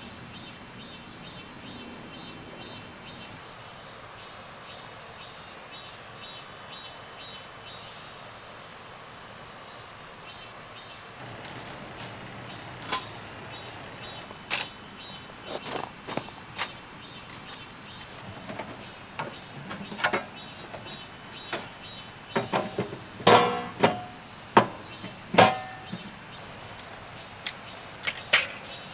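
Steady outdoor background with a faint regular pulsing, then a run of sharp clicks and knocks of objects being handled, growing busier and loudest a little before the end.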